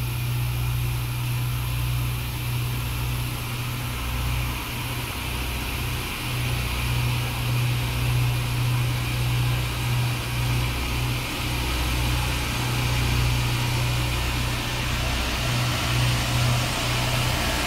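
Rail grinding machine approaching along the track, its engine running with a steady low drone and a hiss above it, slowly growing louder as it comes closer.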